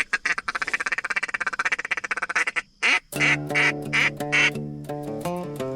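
Duck quacking: a fast string of short clucking notes for about two and a half seconds, then four loud, separate quacks. Acoustic guitar music starts under the quacks about three seconds in.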